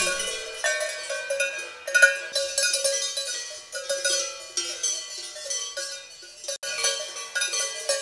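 Several Swiss alpine cowbells clanking irregularly, their ringing strikes overlapping. There is a sudden short break about six and a half seconds in.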